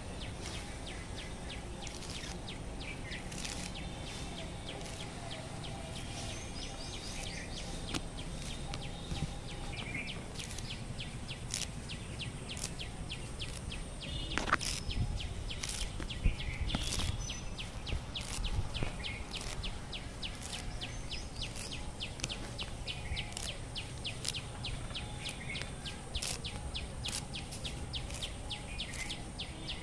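Birds chirping in short, repeated high calls over a steady outdoor background noise, with a few louder short sounds around the middle.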